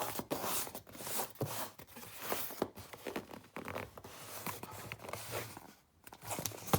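Rustling, scraping and light clicks of a small packaging box being handled, with a short lull about six seconds in.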